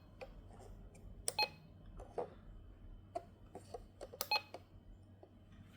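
Buttons pressed on a RadioShack 12-261 weather alert radio while stepping through its menu: sharp clicks with short key beeps, once about a second in and twice near four seconds in, with softer button clicks between.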